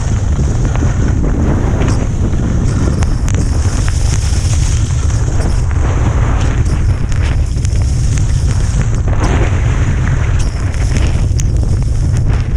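Strong wind buffeting the microphone in a blizzard, a steady heavy rumble. Over it, the hiss of skis sliding over snow swells and fades.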